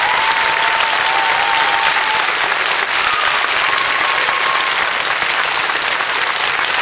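Large arena audience applauding steadily, a dense even crackle of many hands clapping.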